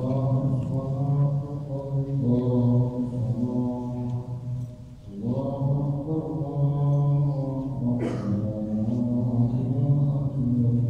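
A man's voice chanting an Islamic prayer in long, drawn-out melodic phrases, breaking off briefly about five seconds in before the next phrase.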